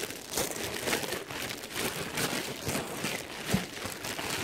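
Clear plastic packaging bags crinkling and rustling as clothing is handled and pulled out of them, with one dull thump about three and a half seconds in.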